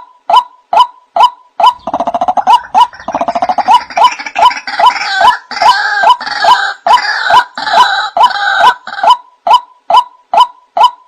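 White-breasted waterhen (ruak-ruak) lure call: a steady series of short 'kwak' notes, a little over two a second. From about two seconds in to about nine seconds, a harsher, denser chorus of croaking, rattling calls joins in.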